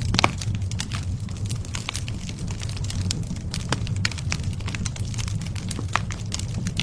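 Campfire of burning wood crackling, with irregular sharp pops and snaps over a steady low rumble. One louder pop comes just after the start.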